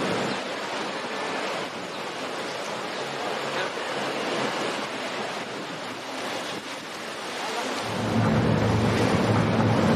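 Water and wind noise around a slowly moving boat, with wind on the microphone. About eight seconds in, a louder, steady, low boat-engine hum comes in.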